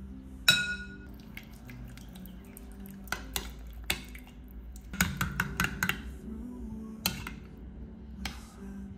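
Metal spoon clinking against a glass bowl while stirring thick yogurt. There is one loud ringing clink about half a second in, then scattered clinks, with a quick run of them in the middle. Soft background music plays underneath.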